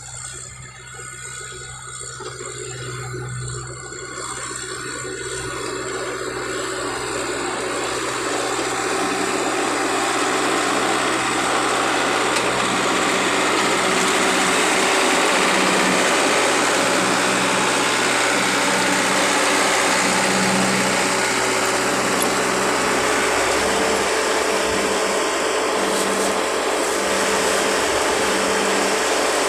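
A machine running with a steady rushing noise that grows louder over the first ten seconds or so and then holds, under a faint hum that pulses about once a second.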